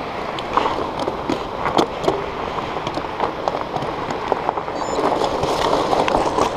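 Fat bike's wide knobby tyres rolling over loose gravel: a steady crunching and crackling with many small sharp clicks of stones, a little louder from about five seconds in.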